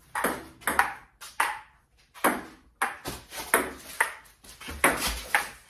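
Table tennis rally: the ping pong ball clicking off the paddles and the table, about two sharp hits a second with uneven spacing.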